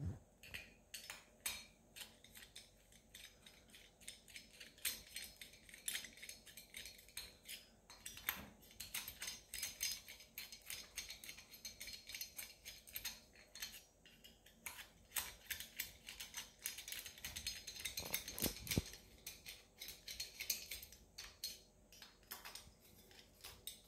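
Small driver turning the head screws into the cooling head of a Novarossi Bonito nitro engine: a faint, quick run of light metallic clicks and ticks, with one louder knock about three-quarters of the way through.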